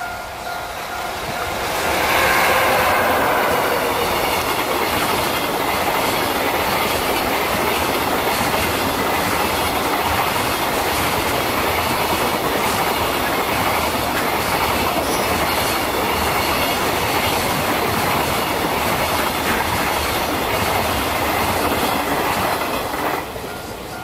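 Long container freight train rolling past at speed, with a steady rumble and rattle of wagon wheels on the rails that swells about two seconds in and fades near the end. A level crossing bell rings at the start and is heard again near the end as the train noise drops.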